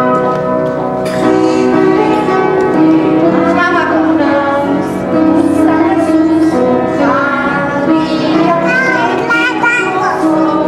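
A song with musical accompaniment and singing, a child's voice among the singers.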